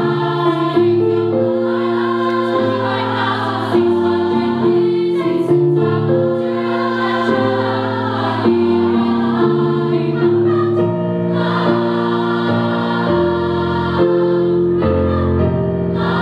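A large female choir singing in harmony: several voice parts holding chords that move from one to the next every second or so.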